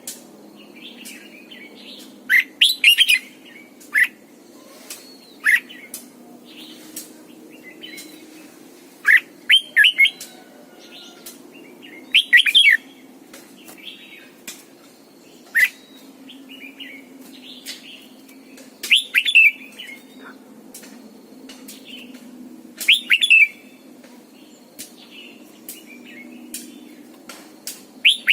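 Red-whiskered bulbul singing short, loud phrases of quick whistled notes, a phrase every two to three seconds, with faint clicks between them.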